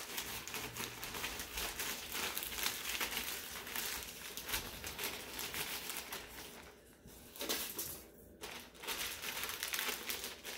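Plastic zip-top bag crinkling and rustling as the pork loin inside is massaged to spread the dry cure. It rustles steadily for about six seconds, goes quiet briefly twice, and crinkles again near the end.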